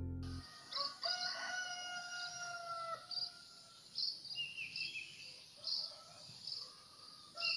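A rooster crowing, one long, slightly falling call a second or so in, over small birds chirping again and again.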